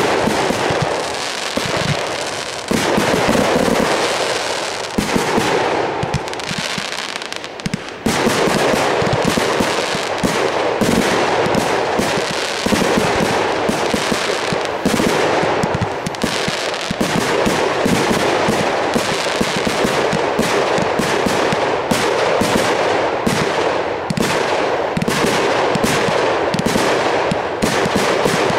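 Aerial fireworks launching and bursting in quick succession, a dense run of bangs and crackle with no pause, growing suddenly louder about eight seconds in.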